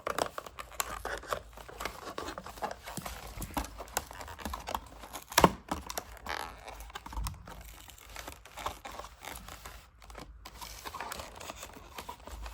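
Packaging being crinkled and torn open by hand to unwrap toy blaster parts: an irregular run of crackles and small clicks, with one louder sharp click about five and a half seconds in.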